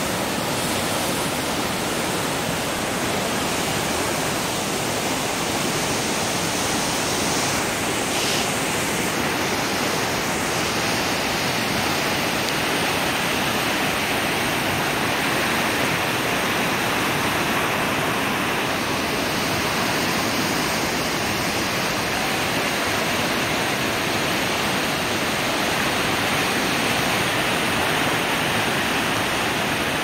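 A fast, swollen river running brown with floodwater over rapids: a steady, unbroken rush of water.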